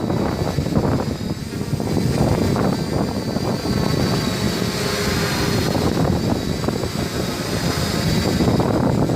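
Quadcopter motors and propellers whining at a steady high pitch that wavers slightly, under loud gusty wind buffeting the microphone.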